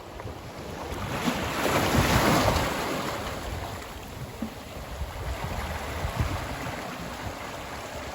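Ocean surf: a wave swells and breaks about two seconds in, then settles into a steady wash. Wind buffets the microphone with a low rumble.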